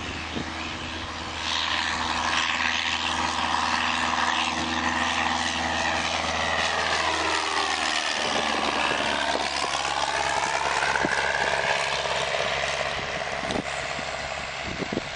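Cessna 172R Skyhawk's four-cylinder Lycoming engine and propeller at climb power, flying low overhead. The drone grows louder early on, its pitch drops as the plane passes over about eight seconds in, and it eases off as the plane climbs away.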